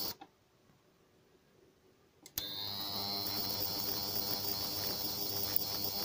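Small ultrasonic cleaner, its repaired driver stage powering the transducer in a water-filled tank, switched off by its push button so that its steady buzzing hum stops a fraction of a second in. About two seconds later it clicks back on and the hum returns, its high tone rising briefly as it settles.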